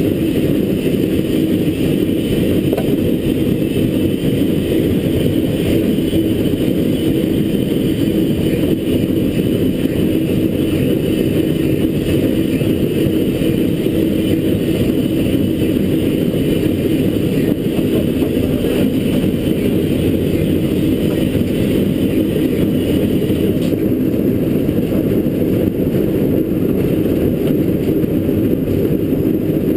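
Footplate noise of LNER K4 three-cylinder 2-6-0 steam locomotive No. 61994 working uphill: a loud, steady rumble of the engine and running gear. A higher hiss over it stops suddenly about 24 seconds in.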